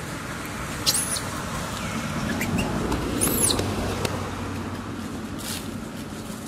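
Two short, high-pitched squeaky calls about two seconds apart, each rising and falling in pitch, with a few fainter chirps, over a steady low background rumble.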